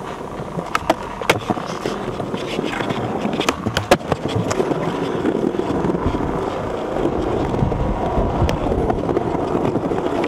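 Skateboard wheels rolling over paving tiles in a steady rumble, with a run of sharp clicks and knocks in the first four seconds.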